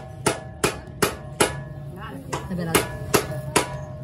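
Hammer striking metal in two quick runs of four blows, about two and a half blows a second with a short pause between the runs, each blow leaving a brief metallic ring.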